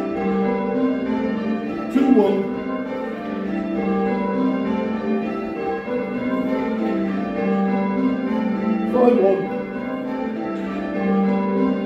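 A ring of six Whitechapel church bells cast in 1978, tenor 12-3-16 in G, rung full circle in call changes, heard from the ringing chamber below: a steady, even stream of bell strokes following one another in rounds.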